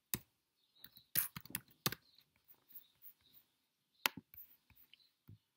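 Scattered clicks and taps of hands handling the recording device, with louder knocks about a second in, just before two seconds and about four seconds in.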